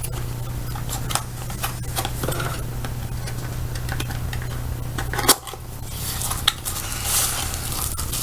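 Packaging being handled and opened by hand: rustling with scattered small clicks and taps and one sharper knock about five seconds in, over a steady low hum.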